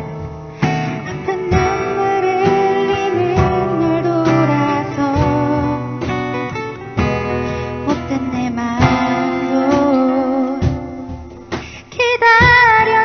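Live acoustic guitar music: chords strummed at an even pace, about one stroke a second, under a held melody line.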